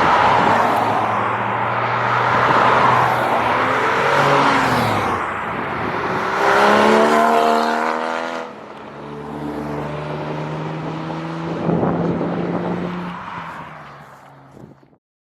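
Sports car engine revving up and down, with a rise in pitch under acceleration, then running more steadily and fading out.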